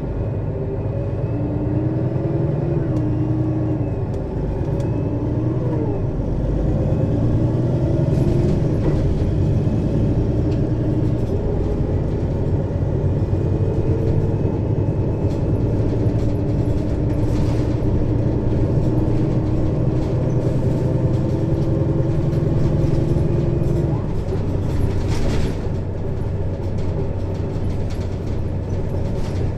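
Mercedes-Benz Citaro city bus's diesel engine running under load, heard close up from above the engine, driving through a ZF Ecomat automatic gearbox. The engine note rises and falls a few times in the first six seconds, then holds a steady pull until the note drops about 24 seconds in.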